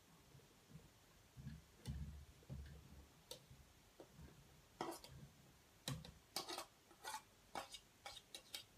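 Faint clicks and taps of a knife scraping chopped cucumber out of a plastic bowl into a blender jar. Soft thuds of pieces dropping in come about two seconds in, and a quicker run of sharp clicks follows in the second half.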